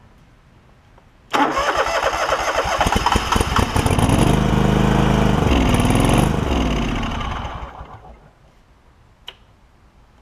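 John Deere LX188's Kawasaki V-twin engine cranking on its starter, catching about three seconds later and running briefly with a wavering note before winding down and stopping. The new aftermarket carburetor is flooding and fuel is pouring out the bottom, which the owner suspects is a needle and seat not closing.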